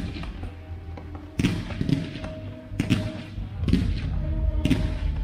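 Aerial fireworks bursting with sharp bangs, about six in five seconds, each trailing off, over music played for the show.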